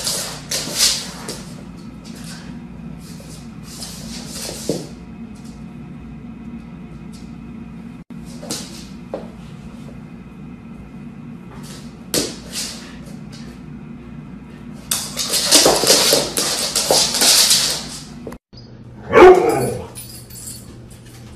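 A dog and cat sparring on a hard floor: scattered short scuffles and knocks, a loud rough noisy stretch about three-quarters of the way through, then a dog vocalising with a sliding pitch near the end.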